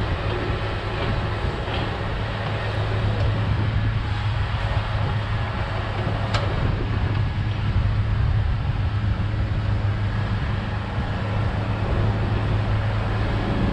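Diesel engine of a heavy earthmoving machine (bulldozer or excavator) running steadily under work, with a low even hum. One short knock about six seconds in.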